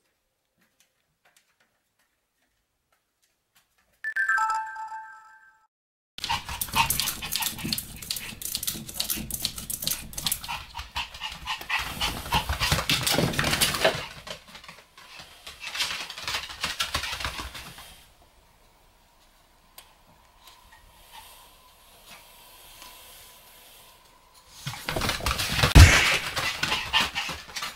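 A short chime about four seconds in, then two Pomeranians play-fighting, barking in bursts that come and go, loudest near the end.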